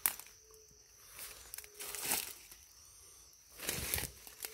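Footsteps crunching and rustling through dry leaf litter on the forest floor, a few separate steps.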